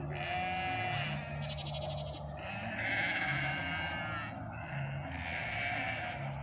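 Dorper sheep bleating, several calls one after another. One call has a fast quaver in it, and the loudest comes about three seconds in.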